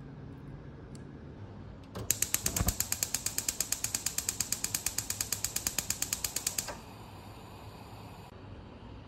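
Gas stove burner's spark igniter clicking rapidly, about ten ticks a second, for several seconds while the burner lights. The clicking stops and a softer hiss of the gas flame carries on briefly.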